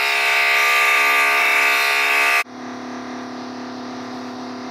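A neighbour's electric drill running with a loud, steady whine, cutting off suddenly about halfway through; a quieter, lower steady hum continues after it.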